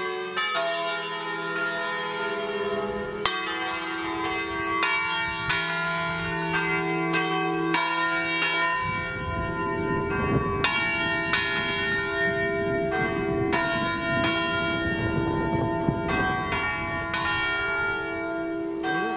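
Church bells pealing: several bells of different pitch struck one after another, about one or two strokes a second, each ringing on under the next.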